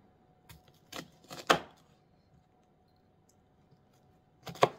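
Kitchen knife chopping through bok choy stalks onto a cutting board: a few sharp chops about a second in, the loudest about a second and a half in, and another loud chop near the end.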